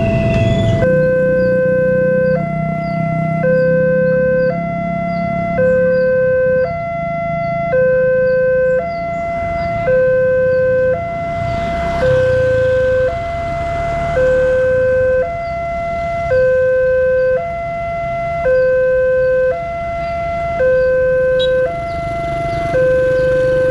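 Railway level-crossing warning alarm: an electronic two-tone signal alternating between a lower and a higher tone, each held about a second, repeating steadily.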